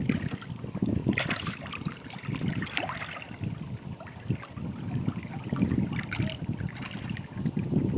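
Water sloshing and splashing around a person wading chest-deep, with scattered small splashes, over a steady low rumble of wind on the microphone.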